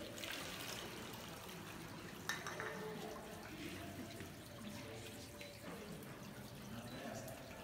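Water trickling and splashing in a stone fountain baptismal font, with a brief knock about two seconds in.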